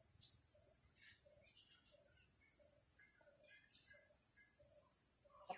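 Tropical rainforest ambience: a steady high-pitched drone of insects, with scattered short bird chirps and a faint low note repeating about twice a second.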